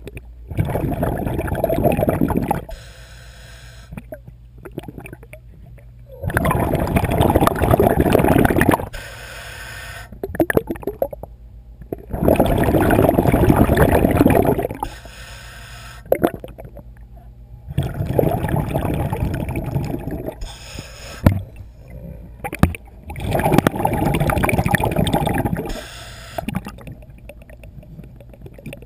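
Scuba diver breathing through a regulator underwater: five bursts of gurgling exhaled bubbles, each about two and a half seconds long, in a steady rhythm roughly every five and a half seconds, with quieter inhalations between.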